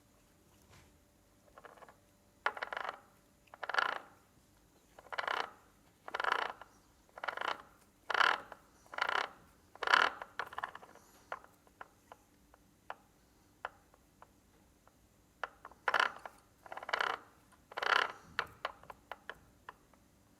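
Steel bevel-gear reducer being worked by hand in short strokes: a run of brief rasping metal bursts about once a second, then scattered clicks, then three more bursts near the end.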